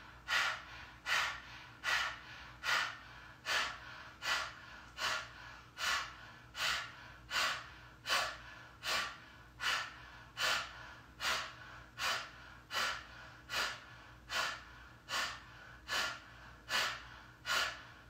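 A woman doing a kundalini yoga breathing exercise, breathing forcefully through a wide-open mouth in a steady rhythm. Each breath starts sharply and fades, a little over one a second.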